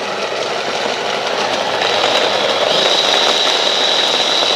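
KitchenAid electric chopper running steadily, its blades mincing peeled garlic cloves, with a high motor whine that grows louder about two and a half seconds in.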